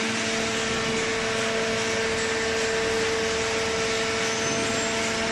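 Horizontal hydraulic baler's power unit running steadily: a constant hum over a broad hiss, with no change in pitch or level.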